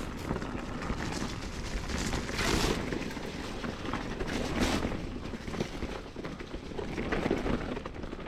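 Wind noise on the microphone and the rolling noise of a mountain bike being ridden along a dirt singletrack. Two louder hissing surges come about two and a half and four and a half seconds in.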